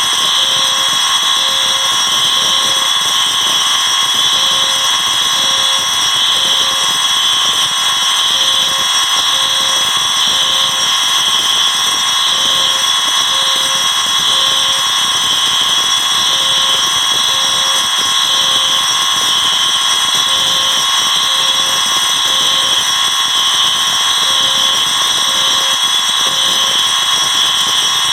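Many fire alarm horns, bells, sirens and speaker-strobes sounding together in a loud, steady wall of tones. One device pulses in groups of three beats, repeating about every four seconds: the temporal-three fire evacuation pattern.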